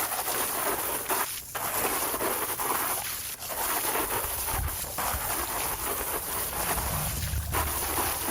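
Hose water spraying onto the fabric grids of a diatomaceous earth pool filter to rinse them: a steady hiss of spray that drops out briefly a few times.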